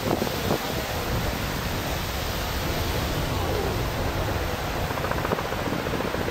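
Steady, fairly loud rushing noise of wind and big ocean surf, with no distinct events; faint voices come through briefly.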